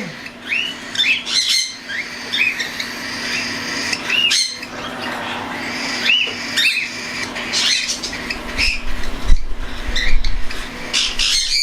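Young cockatiels, nearly weaned chicks, giving repeated short squawking calls, several a second, overlapping from more than one bird. A low rumble joins in about eight seconds in, loudest about nine seconds in.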